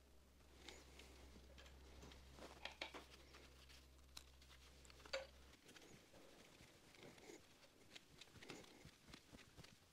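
Faint clicks and taps of small tools and gloved hands fastening wiring to a motorcycle battery's terminals, with one sharper click a little past halfway. A faint low hum under it cuts off about halfway through.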